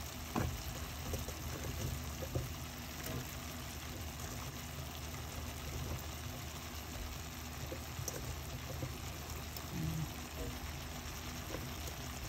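Steady hiss and bubbling of a pot of fish in vinegar simmering on the stove, with a few soft knocks in the first few seconds as bitter melon slices drop into the pot.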